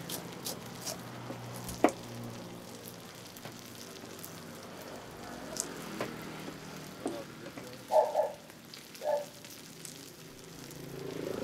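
Food frying with a steady sizzle, with a few sharp clicks and knocks of a cooking utensil. Two short, louder bursts of sound come late on.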